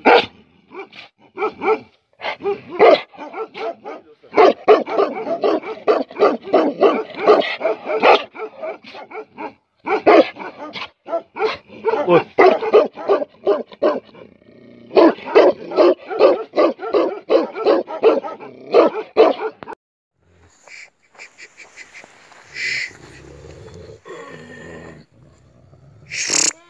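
A large dog barking hard and fast, several barks a second, in long runs broken by short pauses. The barking stops about 20 seconds in, leaving quieter mixed sounds with a couple of louder calls near the end.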